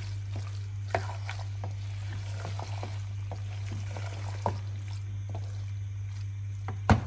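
Wooden spatula stirring thick chickpea and potato curry in a nonstick pot: soft wet scrapes and light clicks, over a steady low hum. A few louder knocks of the spatula against the pot come near the end.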